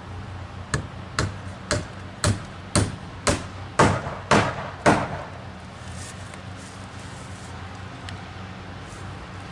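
Hammer blows, nine in a row at about two a second, stopping about five seconds in.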